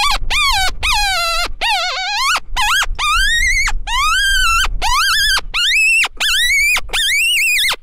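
Hand-blown predator mouth call sounding a rapid series of high-pitched dog-distress cries, about two a second, each bending up and then down in pitch. It imitates a dog or pup in distress to lure coyotes in.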